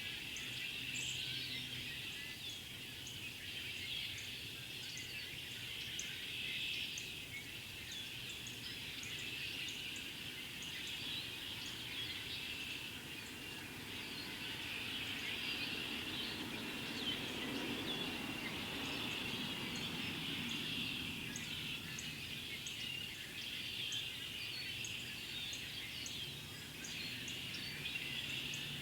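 Large mixed flock of red-winged blackbirds and cedar waxwings calling all at once: a dense, continuous chorus of chattering with many thin, high notes over it.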